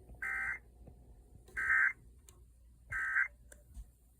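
Emergency Alert System end-of-message data bursts: three short, harsh electronic warbling bursts, each about a third of a second long and about a second and a half apart, marking the end of a broadcast alert.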